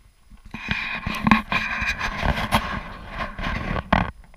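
A motor vehicle running close by, starting about half a second in and cutting off about four seconds in, over footsteps crunching in snow.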